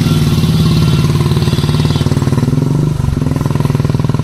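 Heavy diesel engine of a Tata Signa 5530.S tractor unit labouring at low revs with an even, rapid throb as it pulls a loaded trailer of steel bars away from a standstill on an uphill climb. There is a brief dip about three seconds in.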